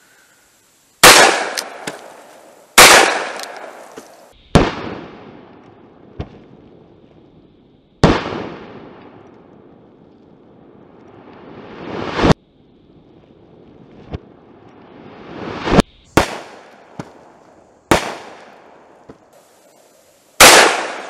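Taurus Model 608 .357 Magnum revolver with a ported barrel firing 158-grain full metal jacket rounds: about seven sharp single shots spaced one to four seconds apart, each trailing off in a long echo. In the middle, twice, a report swells up and then stops abruptly.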